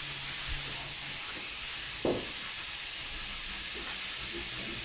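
Chopped onions frying in melted smen (clarified butter) and oil in a stainless steel pot: a steady sizzle, with a brief knock about two seconds in.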